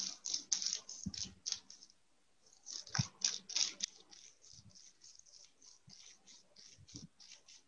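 Paintbrush dabbing thick acrylic paint onto bubble wrap: a run of short, soft scratchy strokes, about three a second, with a couple of light knocks, growing fainter after about four seconds.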